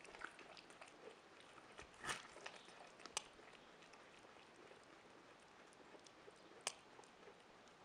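Capybara biting and chewing a yellow squash: faint, sparse crunches, the sharpest about two seconds in, about three seconds in, and near the end.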